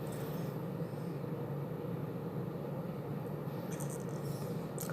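Steady low rushing background noise with a faint hum and no distinct events.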